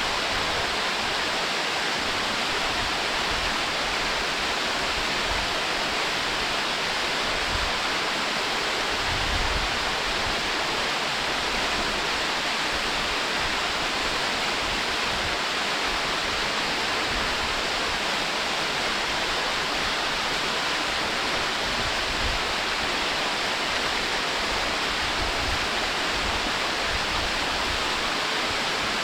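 Waterfall cascading over rock: a steady, even rush of falling water, with most of its energy in the upper-middle range and an occasional faint low rumble.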